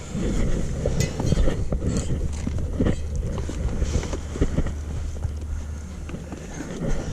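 Wind buffeting the microphone in a steady low rumble, with scattered knocks and rustles throughout.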